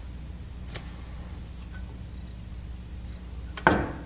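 A single sharp metallic clink near the end, as a metal part knocks against the steel workbench, with a faint tick about a second in, over a low steady hum.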